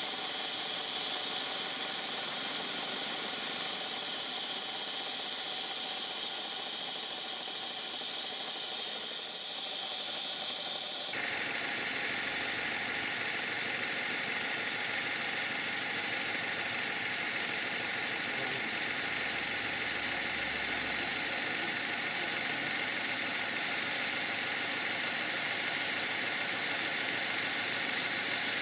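Steady hiss of live steam blowing off from the safety valve of a model GWR 14xx-class tank locomotive in steam, turning to a fuller hiss about eleven seconds in.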